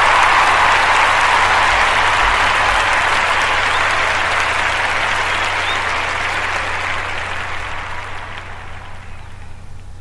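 Crowd applauding, fading out slowly over the last few seconds.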